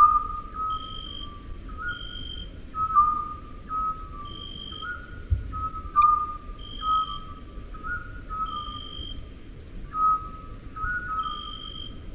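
A whistle-like tune of short, pure notes stepping up and down, with a higher short tone recurring about every second, over a low rumble.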